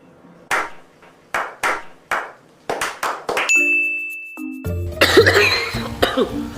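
Edited cartoon sound effects: a run of about six short hits that fade quickly, then a bright held ding about three and a half seconds in, after which background music with a bass line starts.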